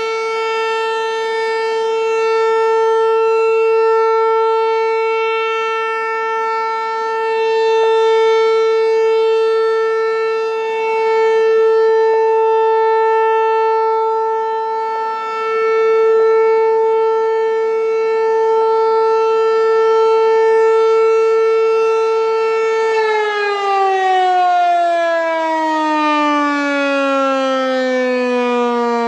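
American Signal T-128 rotating mechanical outdoor warning siren sounding a steady alert tone, swelling and fading about every four seconds as its head turns. About three-quarters of the way through it shuts off and winds down, its pitch falling steadily.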